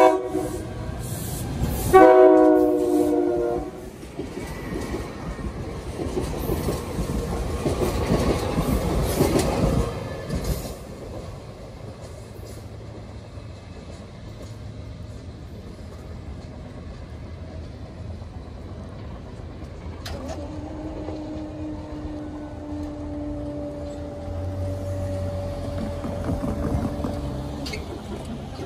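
SEPTA Silverliner electric commuter train sounding its horn, a short blast and then a longer one about two seconds in. It then rolls through the station for several seconds, wheels clattering on the rails. Later a steady low tone holds for several seconds.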